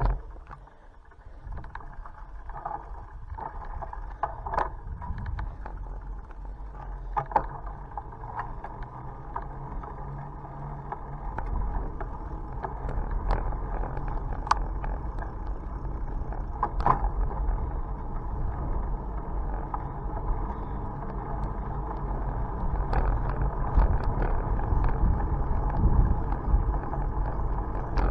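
Bicycle on the move: a steady low rumble of tyres on the road with wind on the microphone, and scattered sharp clicks and rattles from bumps. The rumble grows louder about halfway through.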